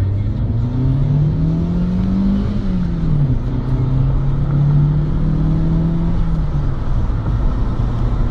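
Engine note climbing, dropping sharply about three seconds in, then holding steady and fading out about seven seconds in, over a constant low road rumble heard from inside a moving car.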